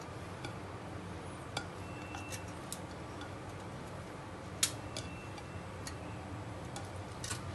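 Scattered light clicks and taps as lemon slices are set down on mutton chops in a foil-lined tray, one sharper click about four and a half seconds in, over low steady room noise.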